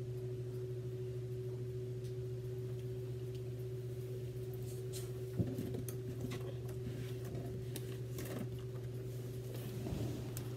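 A steady low hum with a fainter higher steady tone above it, room background with no speech. A single soft knock about halfway through, and faint rustling near the end.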